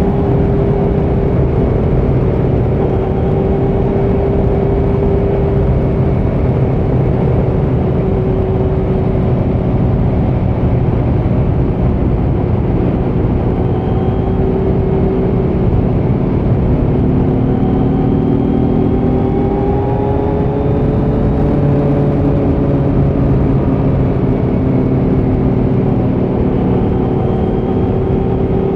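Kawasaki Z900's 948 cc inline-four engine running loud through a Leo Vince muffler on stock headers with no dB killer, held at a fairly even engine speed. Its pitch wavers slightly and rises and falls gently a few times around the middle.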